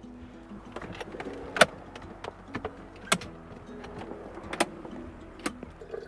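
Tesla Model X falcon-wing door's electric motor running as the door opens, with several sharp clicks, over soft background music.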